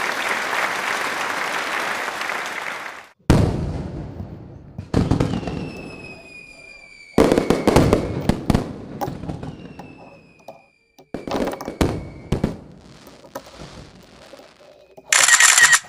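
A steady rushing noise that cuts off about three seconds in, then a series of sharp bangs, each trailing off in a long rumble, with faint whistles slowly falling in pitch between them.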